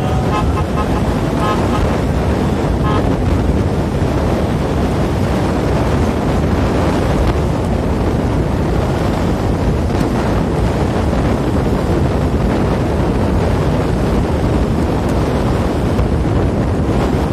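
Steady, heavy wind rush buffeting the microphone, mixed with the road noise of a vehicle travelling at speed.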